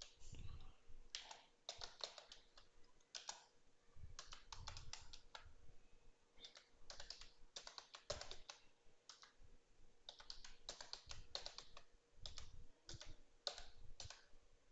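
Faint typing on a computer keyboard: irregular runs of key clicks with short pauses, as a config file is opened and edited in a terminal.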